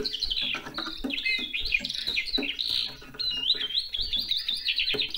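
Eurasian skylark singing: a fast, unbroken stream of high warbled, trilled and whistled notes, with a short dip about halfway through.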